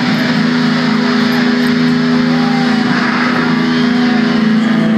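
Metal band playing loudly live, an electric guitar chord held and ringing steadily.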